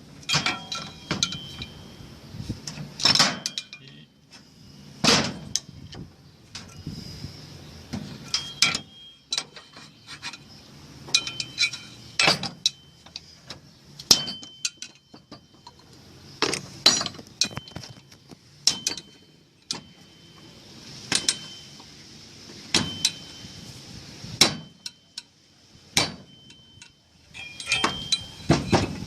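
Irregular sharp metallic knocks and clinks, every second or two, some leaving a brief high ringing tone: metal parts and tools being handled and tapped while a washing machine's tub seal is fitted.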